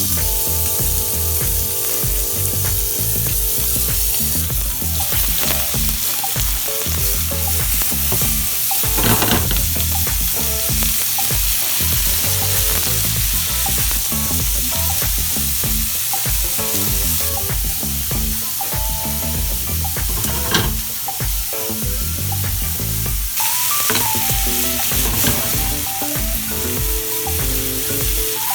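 Food sizzling steadily as it is stir-fried in a pot, with a few sharp knocks of the utensil: pancetta and vegetables being sautéed, the first stage of making tonjiru.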